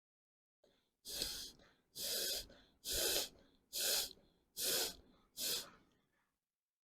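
Six sharp, forceful breaths blown out through the nose, about one a second, clearing the water left in the nasal passages after a jal neti rinse.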